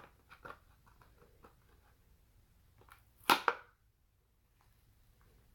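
A Hot Wheels blister pack being handled and opened: small plastic and cardboard clicks, then a loud sharp double snap a little over three seconds in, as the package gives way.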